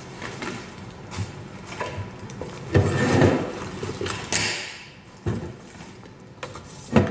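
Packaging being handled: a cardboard box and a plastic-bagged kitchen spiralizer are pulled out and set down on a wooden tabletop. Light knocks and clicks throughout, a rustle of plastic and cardboard around the middle, and a sharper knock near the end.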